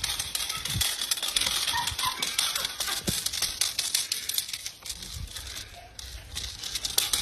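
Dense crackling rustle of movement through grass, with a few dull thumps; a little quieter past the middle.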